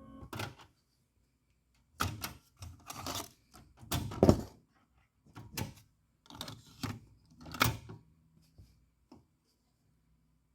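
Mechanical clicks and clunks of a Yamaha KX-W602 double cassette deck being operated by hand: transport keys pressed and the tape mechanism engaging. There is a brief knock at the start, then a run of irregular clunks from about two seconds in until about eight seconds, and a faint tick near the end.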